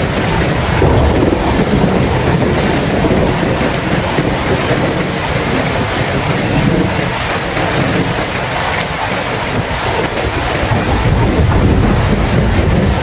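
Steady heavy rain with a low rolling rumble of thunder underneath. The rumble is strong at the start, eases a little past the middle, and builds again near the end.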